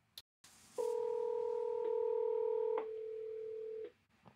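Incoming-call ring from a browser softphone call panel: a steady electronic tone at two pitches that holds for about three seconds. The higher pitch drops out about two-thirds of the way through.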